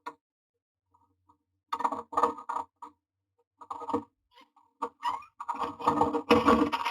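Common myna moving about inside a wooden nest box: irregular short bursts of scratching and tapping, busiest near the end.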